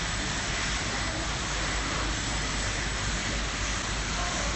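Steady rumble and hiss of the Central–Mid-Levels escalator running, heard while riding it, with faint voices near the end.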